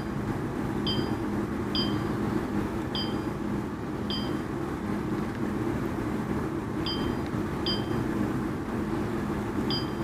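Woodpecker LX16 Plus dental laser's touchscreen giving a short electronic beep for each key tapped, seven beeps at uneven intervals as a word is typed letter by letter. A steady low hum runs underneath.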